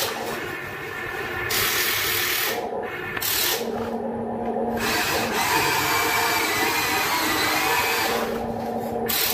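Electric motors of a Huina radio-controlled model excavator whirring as it works its arm, starting and stopping several times.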